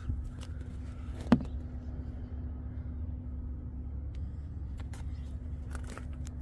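Vehicle engine idling with a steady low rumble and hum, with one sharp knock about a second in.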